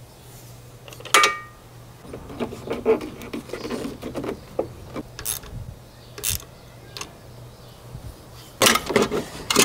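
Hand tools and metal engine parts clinking and rattling during work on an LT4 V8's front accessory drive. There is a sharp metallic clink with a brief ring about a second in, then a run of small rattling clicks, a few single knocks, and a quick cluster of knocks near the end.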